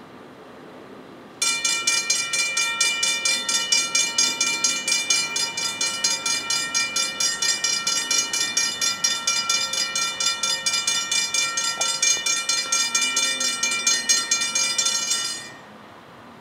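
Grade-crossing warning bell, a Safetran hybrid mechanical bell, starting suddenly and ringing in rapid, even strokes, several a second, then stopping near the end: the crossing has activated for an approaching train.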